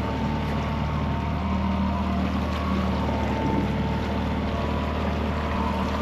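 Fishing boat's engine running steadily at trolling speed, a constant low hum.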